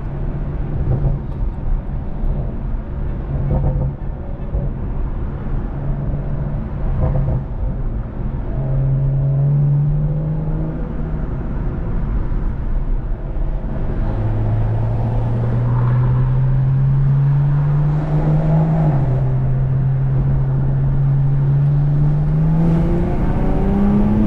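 A BMW M340i's turbocharged 3.0-litre inline-six, heard from inside the cabin over road rumble. The engine runs at an even note for the first half, then pulls with a rising pitch, drops back at an upshift about three-quarters of the way through, and climbs quickly again near the end under acceleration.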